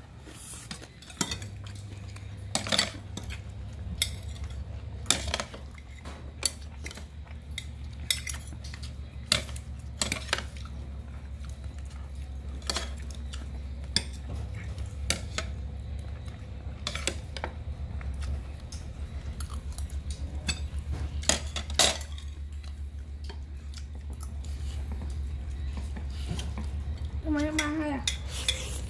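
Metal spoons clinking and scraping against plates as food is scooped up, with sharp clinks about every second over a steady low hum.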